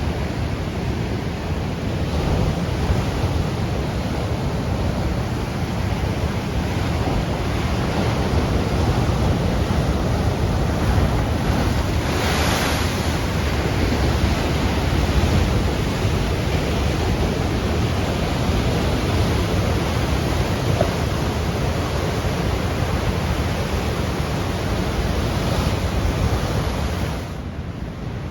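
Ocean surf washing steadily against the shore at high tide, with a deep rumble; one wave breaks louder about twelve seconds in.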